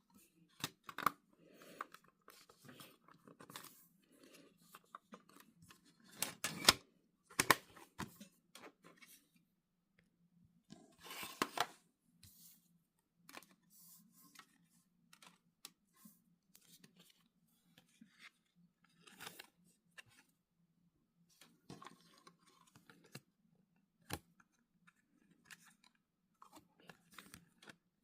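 K-pop album packaging and photocards being handled: irregular rustling and crinkling of paper and plastic, with scattered clicks and taps. The louder rustles come about six to eight seconds in, and a longer one about eleven seconds in.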